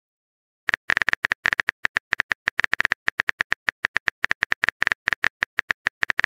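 Texting-app keyboard typing sound effect: a quick, even run of clicks, about eight or nine a second, one per character, starting a little under a second in.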